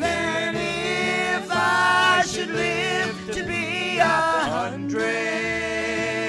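A gospel group performing a song: a wavering, vibrato-laden melody line over steady instrumental accompaniment.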